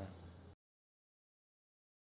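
Near silence: the soundtrack cuts to complete digital silence about half a second in.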